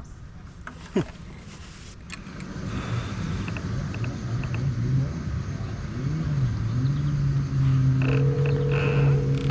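A motorboat engine on the lake, growing louder as it approaches, its pitch wavering up and down before it settles into a steady drone.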